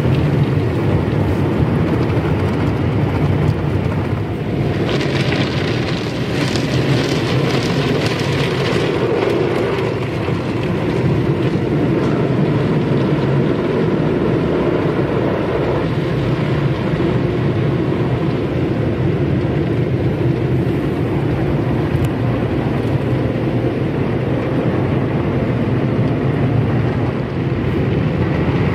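Automatic drive-thru car wash heard from inside the car: a steady, loud rush of water and foam being sprayed over the windshield and body, with a brighter hiss from about five to nine seconds in.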